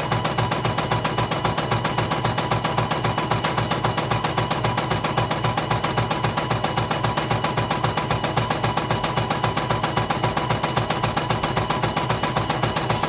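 CNY E900 computerized embroidery machine stitching, its needle clattering in a rapid, even rhythm over a steady running tone.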